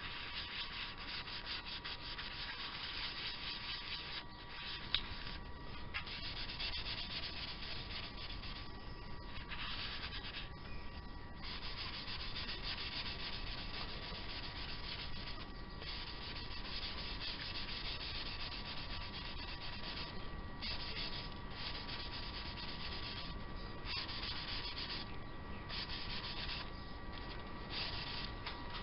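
Abrasive rubbing against a spinning elm dish on the lathe, knocking back the dried sanding sealer. The scratchy rubbing comes in stretches with brief pauses, over a thin steady whine.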